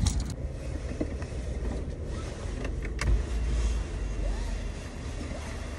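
Car running, heard from inside the cabin: a steady low road and engine rumble, with a brief knock about three seconds in.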